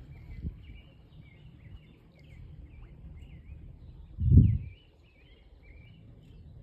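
Birds singing continuously in quick, warbling chirps, over a low rumble of wind on the microphone. A single loud, low thump about four seconds in.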